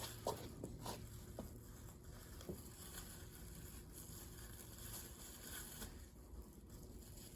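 Faint handling noises: a few soft taps and rubs in the first couple of seconds, then only a steady low hum.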